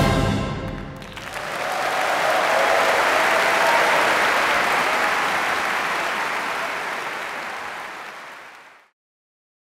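The orchestra's final chord rings away in the hall's reverberation during the first second, then a large concert-hall audience applauds. The applause tapers off and is cut to silence near the end.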